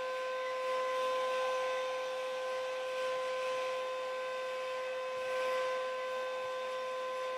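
An upright vacuum cleaner and a hand-held hair dryer running together, switched on to overload the circuit and trip the breaker. There is a steady, high motor whine over a rush of air that swells twice, about a second in and again near the end.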